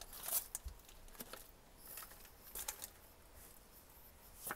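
Faint rustling and scattered soft clicks of a foil trading-card booster pack and its cards being handled, with one sharp click near the end.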